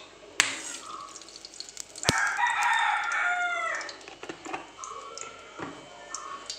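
A rooster crowing once, about two seconds in, for under two seconds, the call falling in pitch at the end. A sharp click comes just before the crow.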